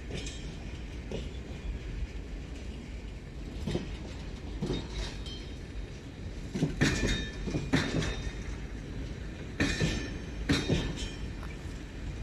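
Freight flat wagons rolling slowly past during shunting, over a steady low rumble. Their wheels clack over a rail joint in pairs about a second apart, three times, with a short metallic ring on the louder clacks.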